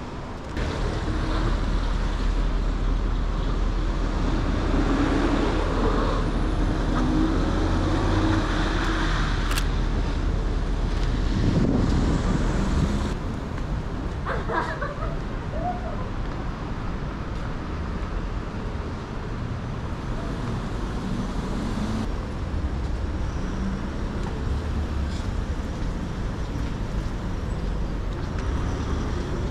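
City street traffic noise: passing cars and other road vehicles make a steady rumble that is louder for the first dozen seconds, then eases a little. There is a single sharp click about a third of the way in.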